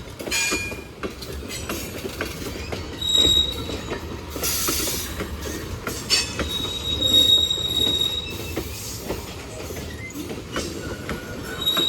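Norfolk Southern freight cars loaded with steel coils rolling past, their steel wheels clicking over the rail joints. High-pitched wheel squeal rings out briefly about 3 s in and again, longer, from about 6.5 to 8 s.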